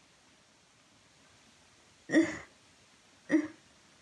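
Two short, catching sounds from a young woman's throat, the first about two seconds in and the second just over a second later.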